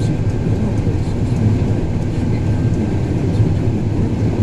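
Snow groomer (snowcat) driving over snow, heard from inside its cab: a steady low drone of the diesel engine and tracks.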